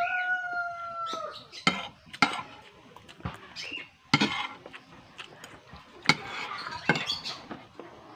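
A rooster crows, its long held final note ending about a second in. Then a metal spoon clicks and scrapes against a plate several times, the loudest sounds here, with chickens clucking now and then.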